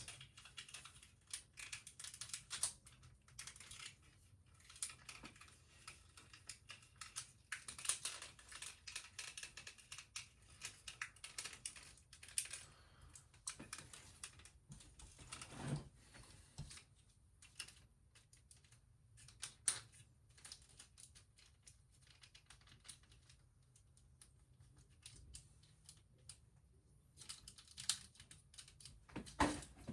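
Faint, irregular clicks and taps of hard plastic action-figure pieces being handled, with quiet gaps between.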